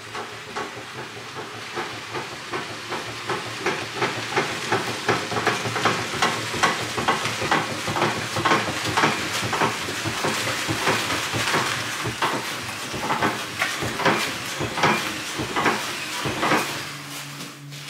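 Gravel crunching and crackling under the tyres of a green Volvo 140-series car rolled slowly across a gravel yard, a dense stream of small irregular clicks that grows louder as it comes nearer. In the last second the crunching dies away.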